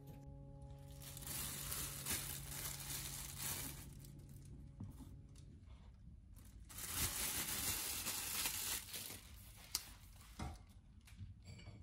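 Dry crinkling and tearing, as of paper or packaging being handled, in two spells of a few seconds each, followed by a few light knocks near the end.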